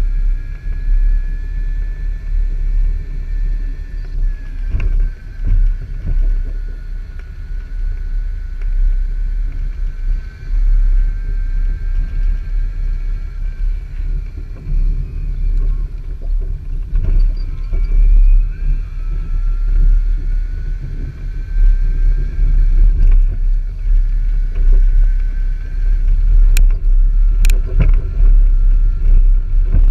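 Jetski trailer rolling behind a Mayan AC mobility scooter: a heavy low rumble from the road, with the scooter's electric drive motor whining above it, its pitch slowly rising and falling with speed. There are scattered knocks, and two sharp clacks near the end as the trailer crosses rough ground.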